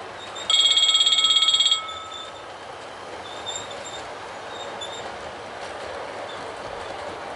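Sound-equipped model 2D2 9100 electric locomotive hauling the Train Bleu: its horn sounds once, a loud high blast with a fast flutter lasting a little over a second, starting about half a second in. Then the steady rolling noise of the model train passing, with a few faint short squeaks.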